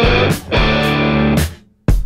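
Rock music with electric guitar chords and drum hits; the music drops away briefly near the end, then a single sharp hit.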